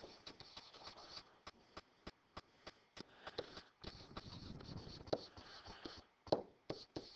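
Stylus faintly tapping and scratching across a writing surface as words are handwritten: scattered quick clicks with soft scratching strokes between them, the sharpest tap right at the start.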